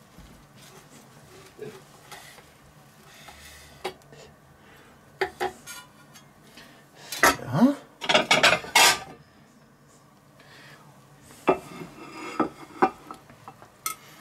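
A knife slicing a bacon-wrapped meat roll on a wooden cutting board, then a knife and fork scraping and clinking as a slice is moved onto a ceramic plate. The loudest part is a cluster of knocks and scrapes a little past halfway.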